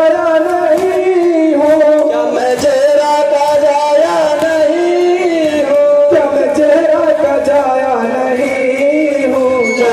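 A Muharram noha, a mourning chant, sung in long held, slowly wavering notes over a steady beat of sharp strikes.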